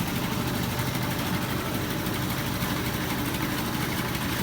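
An engine running steadily at a constant speed, with an even low hum.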